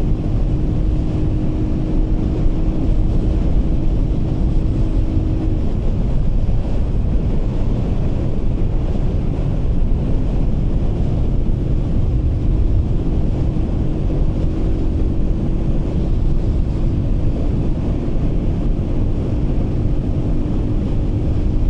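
Heavy wind buffeting on a clip-on wireless microphone on a motorcycle riding at about 70–80 km/h, over the engine's steady hum. The engine tone drops out for several seconds in the middle and then returns.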